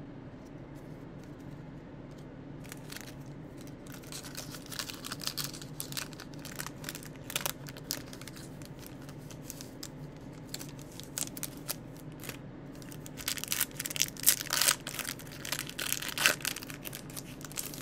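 Plastic wrapper of a Topps baseball card pack crinkling and being torn open by hand, in irregular crackles that are loudest and densest near the end.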